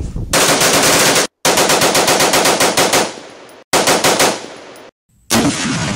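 Rapid automatic gunfire, about ten shots a second, in four bursts of one to one and a half seconds each, with abrupt cuts between them.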